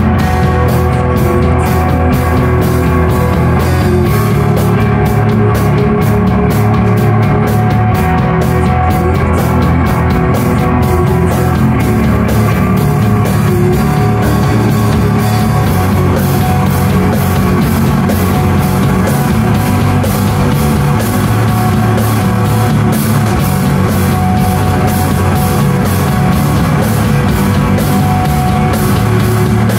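Live rock band playing loudly: guitars over a steady drum beat.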